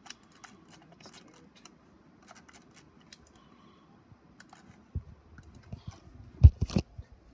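Scattered light clicks of typing on a computer keyboard, then a low rumble and two loud thumps near the end.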